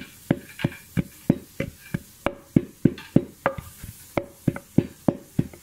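Wooden pestle pounding chilli paste with lumps of palm sugar in a wooden mortar: a steady rhythm of knocks, about three a second.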